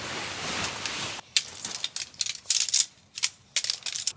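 Tent fabric rustling as the tent is handled, then, from about a second in, a run of sharp, irregular clicks and clacks of tent pole sections knocking together as they are pulled apart and folded.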